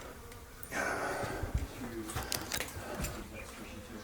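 Someone walking in through a doorway: soft footsteps and a few small knocks over a faint hiss.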